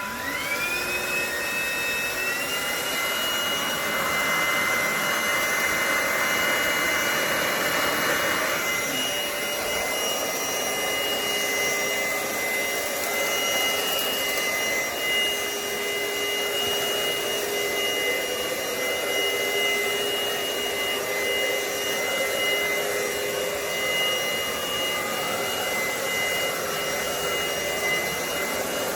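Cordless stick vacuum cleaner switched on, its motor spinning up with a rising whine over the first two seconds, then running steadily with a high whine over rushing air.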